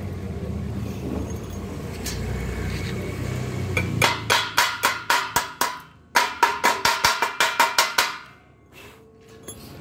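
Chipping hammer knocking the slag off a fresh stick weld where a round pipe joins a thin square steel tube: two quick runs of sharp metallic strikes, about six a second, each with a short ring from the tube. A low steady rumble fills the first few seconds before the strikes begin.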